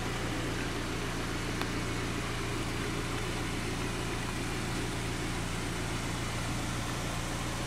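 Car engine running with a steady, even hum, heard from inside the car's cabin.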